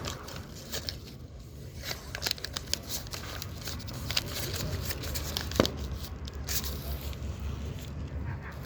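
Rustling and crinkling of paper being handled and tied by hand, with scattered small clicks and one sharper tap about five and a half seconds in.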